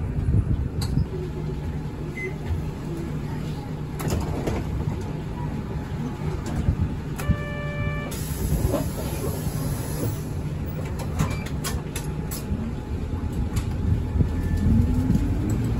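City route bus driving along, heard from inside the cabin: a steady engine hum and road noise with light rattles and clicks. About seven seconds in, a short electronic beep sounds once.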